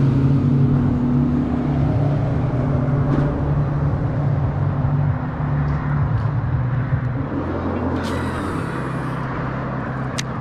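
Boat's outboard motor running at low speed, a steady drone that shifts lower and softer about seven seconds in.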